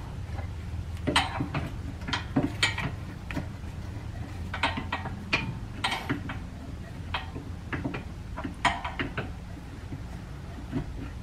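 Irregular metallic clinks and scrapes from a car's rear brake caliper being worked loose and handled, partly with a screwdriver, over a steady low hum.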